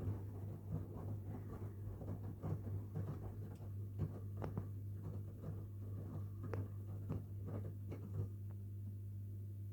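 Washing machine running a wash cycle: a steady low hum with irregular clicks and knocks from the laundry tumbling in the drum. The clicking stops about eight seconds in, leaving only the hum.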